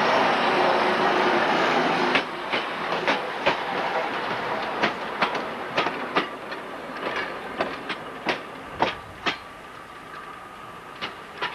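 Railway wagons rolling on jointed track: a steady rolling rumble, then sharp wheel clicks over the rail joints, mostly in pairs, growing fainter.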